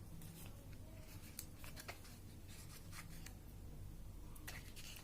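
Faint scattered clicks and rustles of a small product package being handled.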